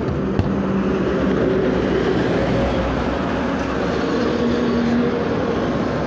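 Steady road traffic noise, with a motor vehicle's engine running.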